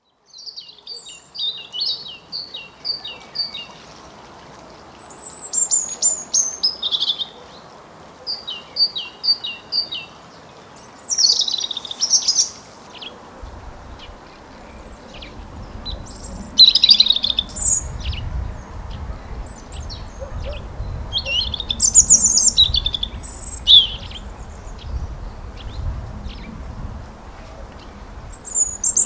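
European robin singing: short, varied phrases of high, thin notes, some of them quick runs of repeated notes, separated by pauses of a second or two. A low rumble sets in about halfway through.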